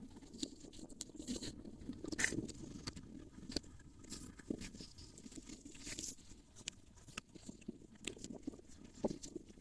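Faint rustling with scattered small, irregular clicks and ticks from an Alabai puppy nosing and mouthing through short grass.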